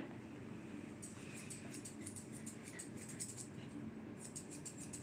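Grooming scissors snipping a Shih Tzu's ear fur in a quick, quiet series of small crisp snips. They start about a second in and pause briefly near four seconds.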